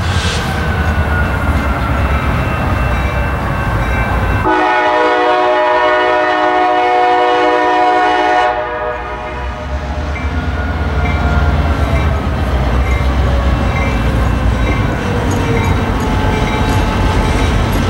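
A diesel locomotive's air horn sounds one long blast of about four seconds, starting about four and a half seconds in, over the low rumble of the approaching CSX GP38-2 and slug locomotive set.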